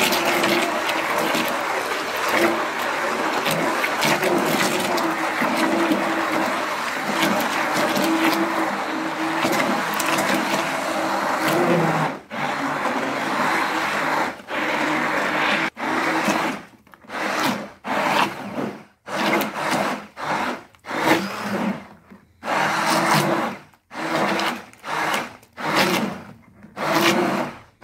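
Hand-held immersion blender running in a large steel pot of cooked tomatoes, pureeing them into sauce. It runs steadily for about the first twelve seconds, then in a string of short stop-start bursts.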